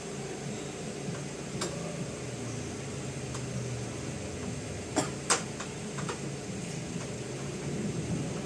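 Low steady background hum with a few light clicks and taps from hand tools and parts being handled, the two sharpest about five seconds in.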